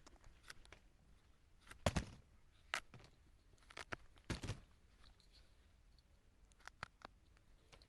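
Quiet room with a few faint, scattered clicks and soft knocks, about half a dozen, between pauses in speech.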